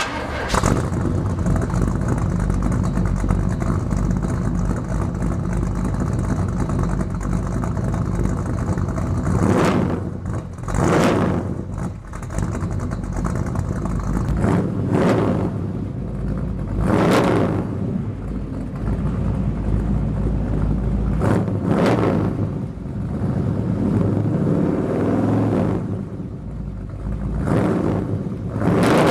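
1972 Chevrolet Chevelle SS 454's big-block V8 idling through its exhaust, then from about a third of the way in revved in a series of short throttle blips, about seven, each rising and falling back to idle.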